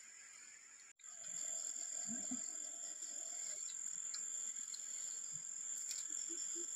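Steady high-pitched insect drone of the forest. It comes in fully about a second in, after a brief dropout, and a few faint low calls repeat near the end.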